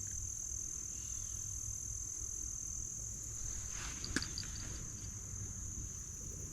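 Insects chirping in one steady, unbroken high-pitched chorus over a low rumble, with a single sharp click about four seconds in.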